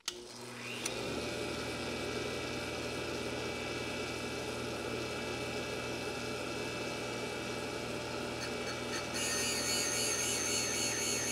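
Valve-grinding machine starting up, its motor rising to speed over about a second and then running steadily. About nine seconds in, a harsher, higher grinding sound joins as the stone cuts into the valve face to clean up its run-out.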